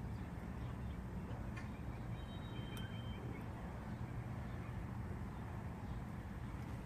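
Steady low background rumble, with a brief faint high-pitched tone about two seconds in.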